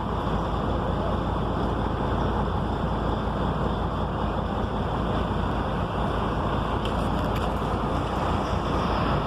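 Diesel engine of an Isuzu LV150 bus running steadily: an even rumble and hiss with no change in pitch or loudness.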